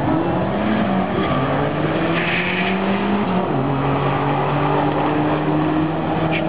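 Two drag cars, a C5 Corvette Z06 V8 and a turbocharged Dodge Neon SRT-4, accelerating hard down the quarter mile. Their engine notes climb in pitch and drop at gear changes about one and three and a half seconds in, then hold fairly steady.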